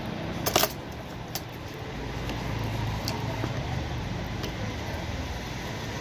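Metal clicks from a screwdriver on the terminal screw of a power socket being wired: a sharp double click about half a second in, a lighter click a second later and a few faint ticks. A steady low rumble runs underneath.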